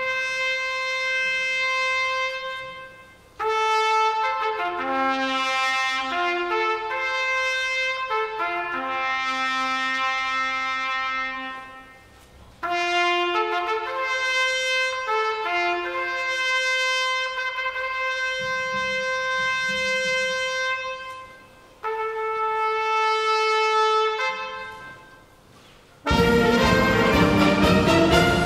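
Solo trumpet playing krakowiak melody phrases alone, each phrase ending on a held note that fades into a short pause. About two seconds before the end the full wind band comes in, louder.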